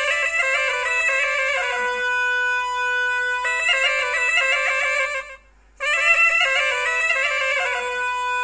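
Kamış (cane reed pipe) playing an old folk tune in quick, ornamented runs, with a held note about two seconds in. The sound breaks off for about half a second some five seconds in, as the player breathes, then the tune picks up again.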